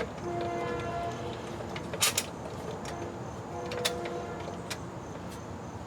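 A few sharp light clicks and knocks as a new transmission filter and its extension tube are worked up into place, over a faint steady hum.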